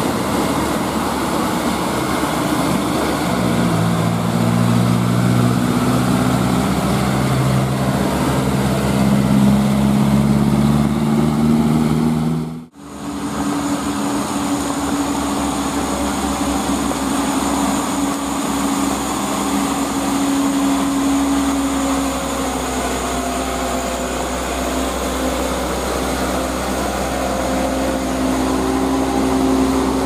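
Diesel engines of loaded light dump trucks pulling up a steep grade. The first truck's deep engine note rises slowly in pitch. The sound cuts out for a moment about 13 seconds in, and another truck's engine then runs at a steadier, higher note.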